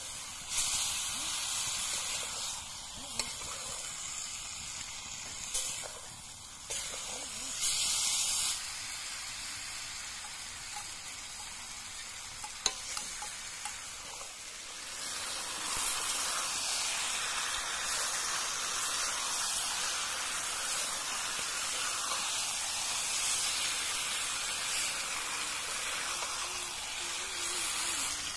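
Pork belly pieces with spice paste sizzling in a large metal wok as they fry in their own fat, turned now and then with a metal spatula. The sizzle grows louder and fuller about halfway through.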